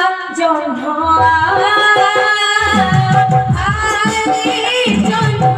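Live jatra stage music: a voice singing long, ornamented held notes over a steady sustained accompaniment note, with hand drums with bending bass strokes coming in strongly about halfway through.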